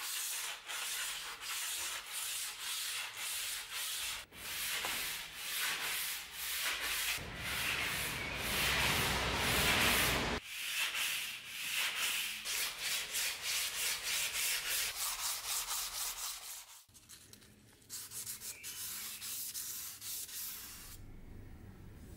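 A steel dagger blade being rubbed by hand with abrasive to polish it, in rhythmic back-and-forth scraping strokes. The strokes come about two a second at first and grow quicker later, with a brief pause about three-quarters of the way through and fainter strokes after it.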